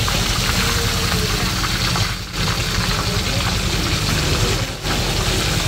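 Whole croaker fish deep-frying in a wok of hot oil, sizzling steadily as it is fried until crisp, with a low steady hum underneath.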